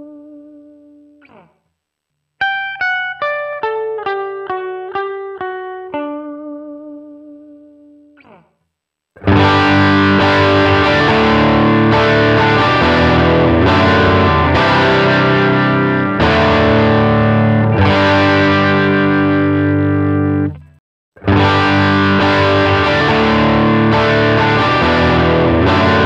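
Electric guitar played through Line 6 digital amp-and-effects modelers. For the first eight seconds or so there are clean picked single notes ringing out. About nine seconds in, heavily distorted strummed chords take over; they stop briefly about twenty-one seconds in and then start again.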